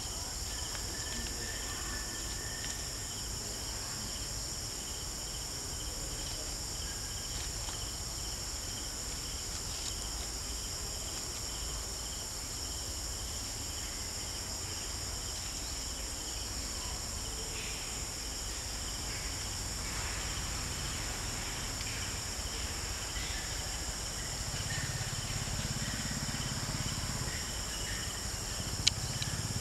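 Steady insect chorus, several high-pitched drones holding without a break. A low rumble comes up near the end, with one sharp click just before the end.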